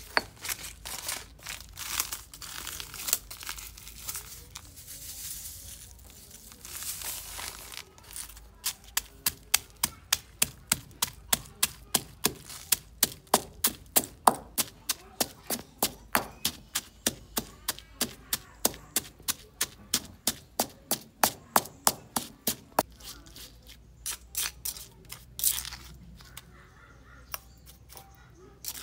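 Stone pestle pounding red chilies, garlic and salt in a stone mortar: irregular crushing at first, then a steady run of sharp strikes, about two or three a second, for some fifteen seconds.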